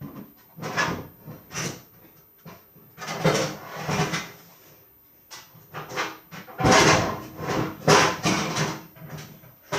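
Cupboard being rummaged through and metal baking trays pulled out, a series of irregular clatters and knocks with some metallic ringing.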